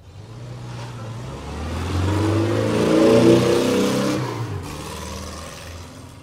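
A motor vehicle's engine swelling as it passes by. It is loudest about three seconds in, then drops in pitch and fades.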